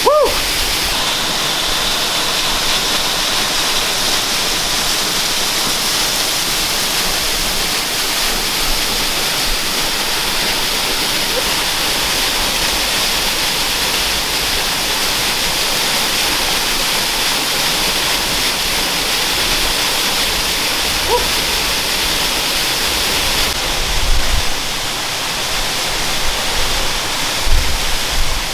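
Jungle waterfall pouring steadily, a constant rush of falling water, with a few low thumps near the end.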